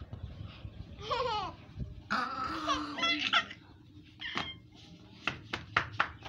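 A baby squealing and laughing in high-pitched cries, followed by a quick run of sharp clicks in the last couple of seconds.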